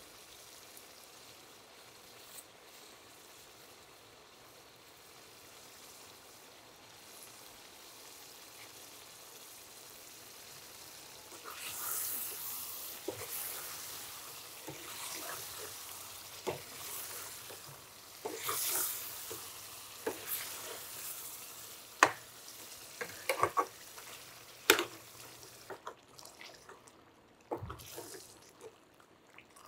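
Chicken curry simmering faintly in a hammered metal pan, then stirred with a metal ladle: wet stirring noises from about a third of the way in, and a few sharp clicks as the ladle knocks against the pan, the loudest around three-quarters through.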